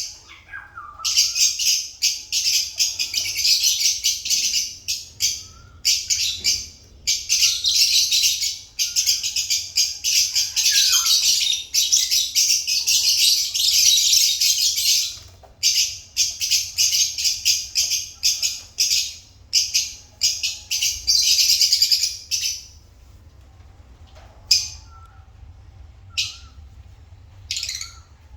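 Lovebirds chirping in fast, shrill chatter in long runs, dropping near the end to a few single calls.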